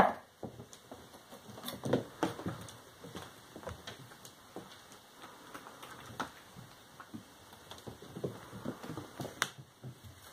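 Kittens playing and wrestling on a wooden floor: an irregular patter of small paws with light thumps, knocks and scrapes.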